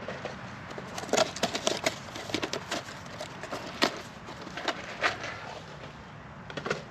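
Chunks of kiln-dried split firewood knocking and clattering against each other as they are set into the fire pit: a run of sharp knocks for about four seconds, then a brief cluster near the end.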